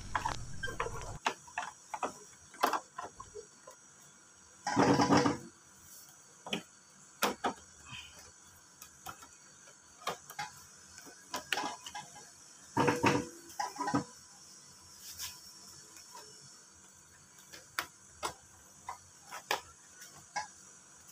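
Plastic body panels of a Honda Beat scooter's front end clicking and knocking as the front cover is pressed and clipped into place by hand, with two longer, louder bursts of plastic noise about five and thirteen seconds in.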